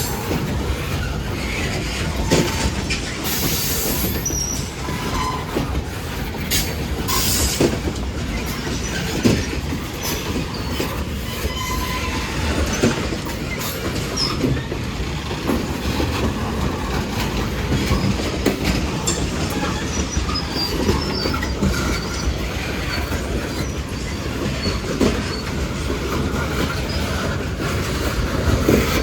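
Union Pacific manifest freight train's cars rolling past: a steady rumble of steel wheels on rail, with repeated clacks and knocks and brief high-pitched wheel squeals.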